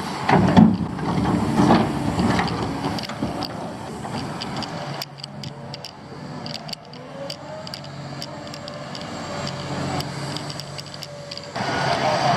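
Excavator at work: engine running with clicks and rattles, louder near the start, easing off midway and picking up again near the end.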